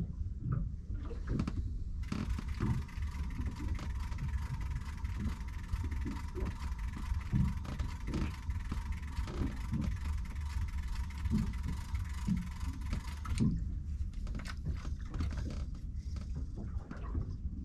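Low rumble and scattered light knocks aboard a small fishing boat drifting on the sea. A steady high hiss starts about two seconds in and cuts off suddenly about three-quarters of the way through.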